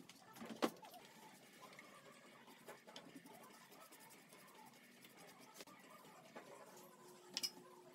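Faint scratching of a paintbrush spreading wood stain along pine pallet slats, with a few light wooden knocks.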